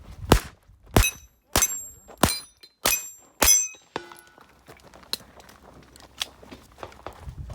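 Six rapid .22 rimfire pistol shots from a Taurus TX22 Competition, about two-thirds of a second apart, several followed by the brief high ping of a steel target being hit. After the string, only faint scattered clicks and a short ringing tone.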